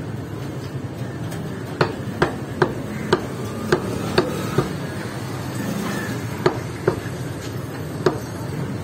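Butcher's cleaver chopping beef on a wooden tree-stump block: a run of sharp chops, about two a second, from about two seconds in, a pause, then three more chops near the end, over steady background noise.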